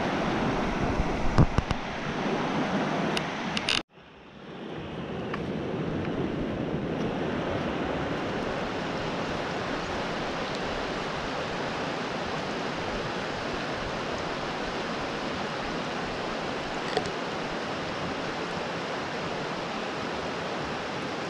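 Steady rushing of a stream's flowing water, with a couple of sharp knocks in the first few seconds and a brief cut to silence about four seconds in.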